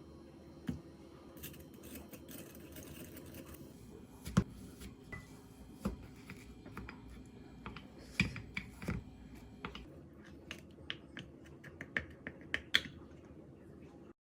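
Light clicks and knocks of kitchen utensils and dishes, scattered at first and coming quicker in the second half, over a steady low hum.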